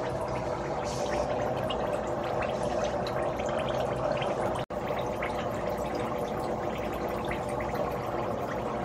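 Water in a dog's bubble spa bath churning and bubbling steadily, with many small pops and splashes over a steady hum. The sound breaks off for an instant a little before halfway through.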